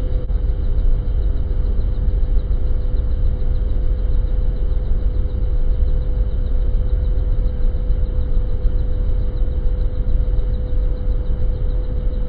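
Helicopter cabin noise in flight: a steady rumble from the rotor and engine with a constant hum held at one pitch.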